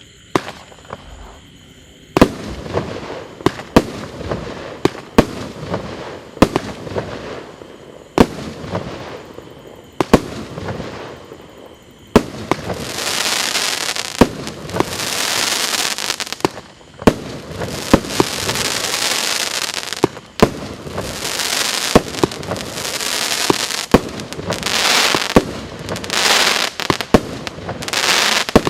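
Fireworks going off: a steady series of sharp bangs about once a second. Then long stretches of dense crackling, with bangs between them.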